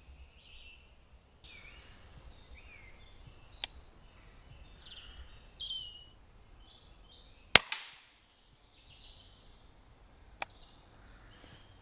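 Woodland songbirds chirping, and about seven and a half seconds in a single sharp crack from a Daystate pre-charged pneumatic air rifle firing. Two fainter clicks come before and after it.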